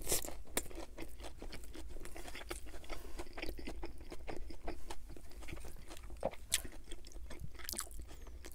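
Close-miked person biting into and chewing a lettuce-wrapped burger: a crisp bite right at the start, then steady wet chewing with many small crunches of the iceberg lettuce.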